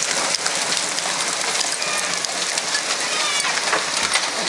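Hail pelting down hard: a steady, dense hiss and patter of hailstones striking the ground and surfaces outside, with many sharper individual clicks from larger stones.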